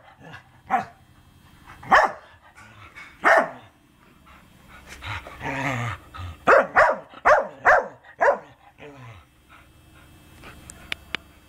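Dog barking: single sharp barks about a second apart, a longer drawn-out call midway, then a quick run of about five barks.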